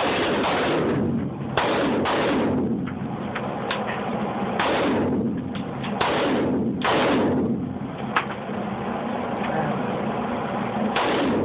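Gunshots on a firing range: five loud shots at uneven intervals, each with a ringing tail, and fainter sharp cracks from other shots in between.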